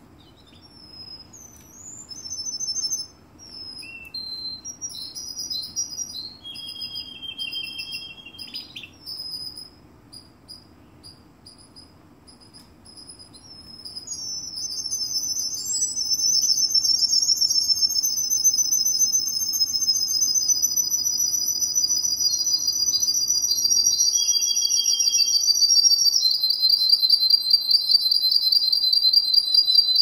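Russian canary singing: short, varied chirps and trills for the first half, then a long, loud rolling trill that drops to a lower trill near the end.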